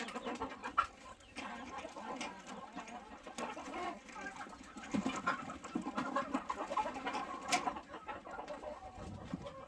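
A flock of chickens clucking and chattering while feeding, with a few sharp clicks.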